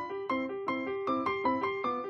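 Solo piano playing a classical piece: a steady run of detached notes, about five a second, with a repeating accompaniment figure in the middle range under a higher melody.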